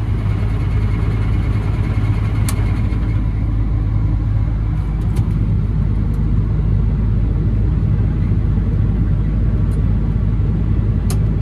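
Case IH 8120 combine running steadily, a loud low drone of engine and machinery heard from inside the cab, with a few sharp clicks scattered through it.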